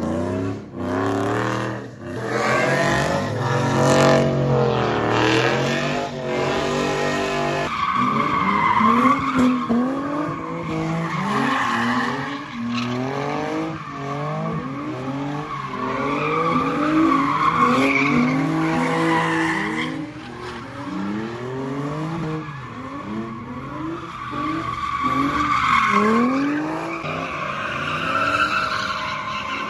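Cars doing donuts and drifts: engines revving up and falling back again and again, with tyres squealing steadily from about eight seconds in.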